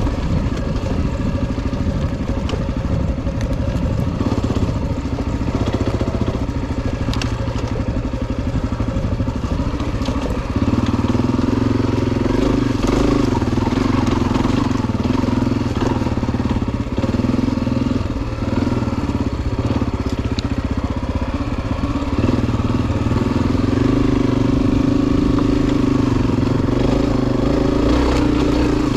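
Honda CRF250F dirt bike's single-cylinder four-stroke engine running under way. About ten seconds in, its note steps up to a higher, louder pitch as the throttle opens, and holds there.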